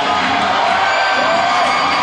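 Hard rock band playing live: electric guitars and drums, loud and dense, with the crowd whooping and cheering over it.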